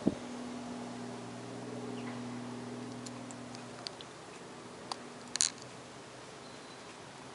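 Faint steady hum of a distant helicopter, fading away about four seconds in. Camera handling clicks sound at the very start, and a louder click comes about five and a half seconds in.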